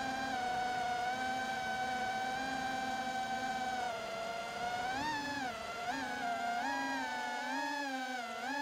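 Holybro Kopis Mini FPV quadcopter's motors and propellers on a 5s battery whining as a high-pitched buzz. The pitch holds steady at first, then rises and falls several times from about five seconds in as the throttle changes.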